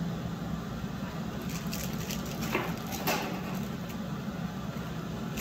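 Steady low hum of a glassblowing studio's furnace and burner blower, with a brief cluster of light taps and clicks about two to three seconds in.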